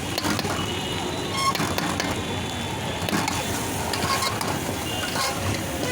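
Busy roadside street noise: steady traffic hum with scattered sharp clicks and short ringing tones.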